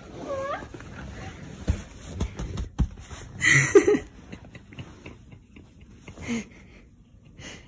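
Domestic cat gives one short meow right at the start. Soft thumps and rustling of bedding follow as it steps onto the bed and settles against a person, with a louder brief noise about halfway through.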